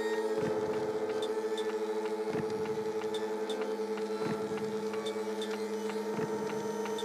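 Steady electrical hum from an electrolytic silver-recovery cell running, with a light click about every two seconds.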